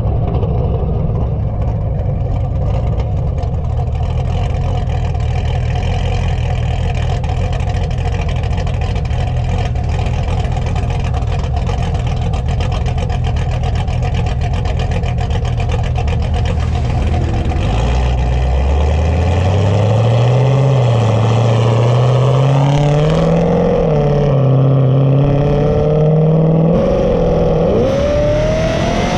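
LS-family V8 with an aftermarket Texas Speed stage 1 VVT camshaft, cruising steadily with a deep exhaust note, then accelerating hard about 18 seconds in, its pitch rising with a couple of brief dips and climbing again near the end.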